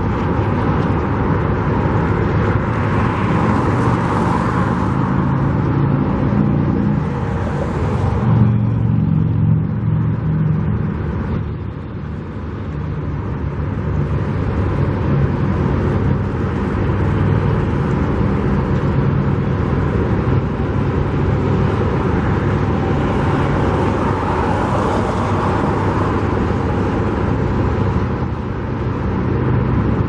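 Motor vehicles running close by: a steady engine rumble, with louder swells as vehicles pass about four seconds in and again near the end.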